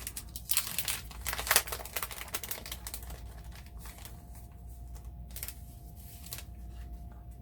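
Crinkling and rustling of a sticker packet's packaging being handled and pulled at while its adhesive seal holds it shut. It is densest in the first couple of seconds, then turns to sparse rustles.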